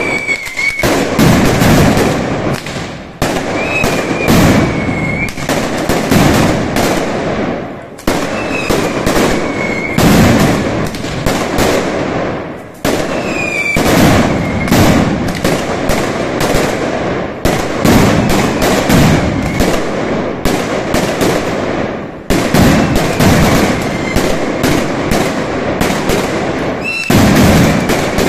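Mascletà: a dense string of ground firecrackers (masclets) going off in rapid succession. It makes a loud, unbroken rattle of bangs with short dips every few seconds.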